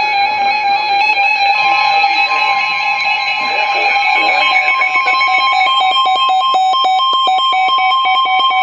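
Emergency Alert System attention signal: a loud, steady two-tone alarm ahead of a severe thunderstorm warning message. In its second half it turns choppy, pulsing rapidly several times a second.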